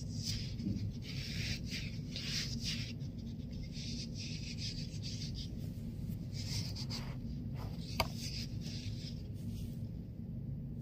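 Hands rubbing and squeezing a soft, stretchy squishy toy, giving irregular bursts of rustling, with one sharp click about eight seconds in.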